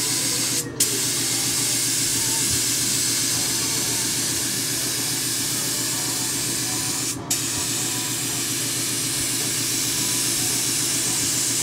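Gravity-feed spray gun spraying primer onto a boat hull: a steady loud hiss of compressed air and atomised paint, over a steady low hum. The hiss breaks off for a moment twice, about a second in and about seven seconds in.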